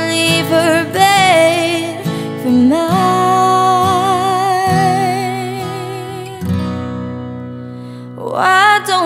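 A young woman singing a slow ballad with long held notes and vibrato, over strummed acoustic guitar accompaniment. Near the end her voice stops for a second or two, leaving the guitar alone, then comes back in.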